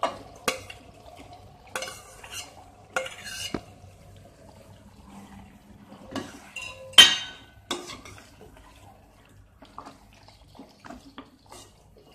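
Steel spoon knocking and scraping against a steel pot as marinated meat is scooped in and stirred into a wet onion-tomato masala. There is a string of clinks and scrapes, and the loudest clank comes about seven seconds in.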